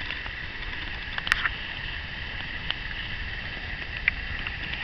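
Campfire crackling, with three sharp pops spaced over a few seconds, over a steady high chirring of insects and a low rumble.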